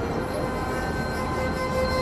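Background music of long held notes over a steady noisy rumble.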